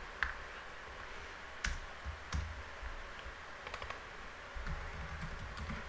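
Faint computer keyboard keystrokes and clicks, a few scattered strokes rather than steady typing, over a low hum.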